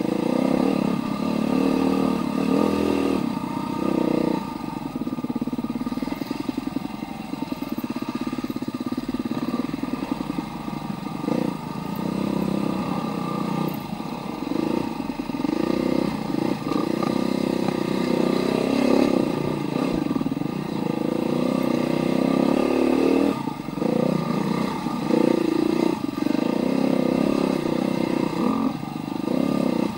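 Husqvarna TE310R dirt bike's single-cylinder four-stroke engine running under way, its revs rising and falling with the throttle.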